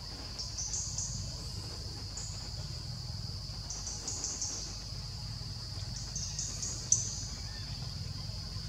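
Forest insects: a steady high-pitched drone, with runs of short high chirps every few seconds over a low rumble. A single sharp click comes about seven seconds in.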